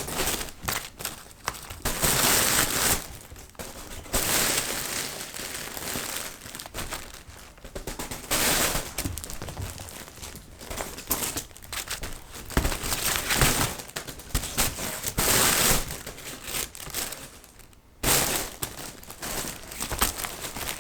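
Crinkly material rustling and crackling in irregular bursts, some louder and longer than others.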